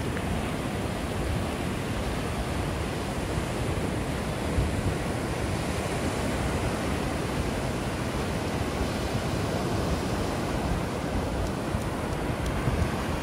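Ocean waves breaking and washing up on a beach in a steady rush, with wind rumbling on the microphone.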